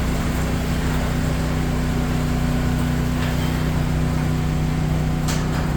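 Garage door opener motor running with a steady hum, with a couple of short ticks near the end.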